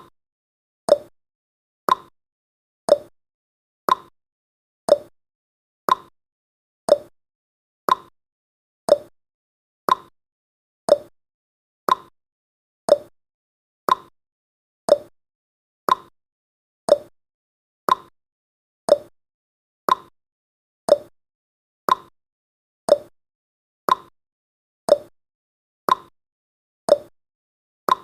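Countdown timer's ticking sound effect: one sharp clock-like tick each second, evenly spaced, each dying away quickly.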